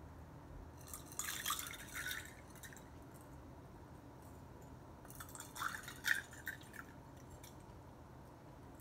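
A blended cocktail being poured from a small glass into another glass of tonic water, liquid splashing and trickling in two short pours, about a second in and again about five and a half seconds in.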